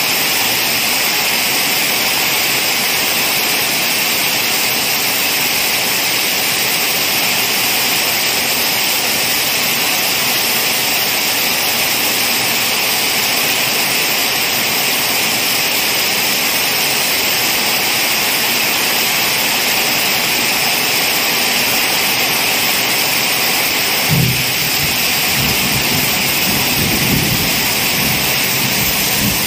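Heavy rain pouring steadily onto potted plants and plastic tubs, an even hiss. About four-fifths of the way through a low rumble of thunder breaks in and rolls on.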